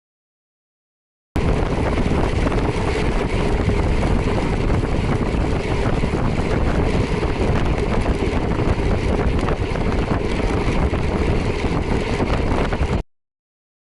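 Wind buffeting the microphone of a camera on a moving motorcycle, over the bike's running engine. It cuts in abruptly about a second in and cuts off abruptly near the end.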